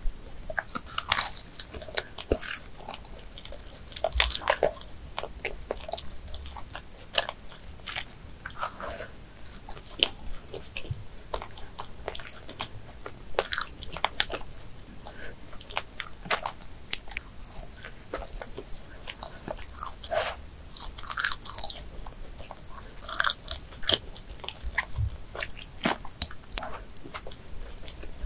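Close-miked chewing of a Krispy Kreme original glazed doughnut, mouth sounds with many irregular small clicks and smacks.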